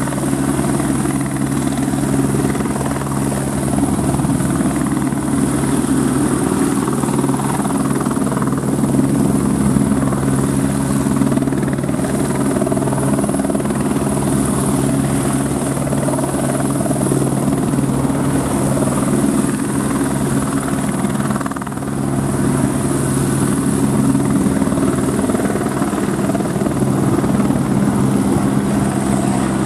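Airbus H125 (AS350 B2 Ecureuil) helicopter hovering just above the ground: its single Arriel turboshaft gives a steady high whine over the rapid, even beat of the rotors and a steady low hum.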